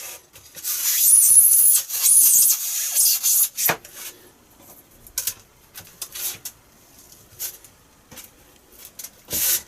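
Carbon fibre strip dragged through a slot cut in foam to test the slot's depth: a loud scraping rub with high foam squeaks for the first few seconds, then a few short, quieter scrapes and a louder one near the end.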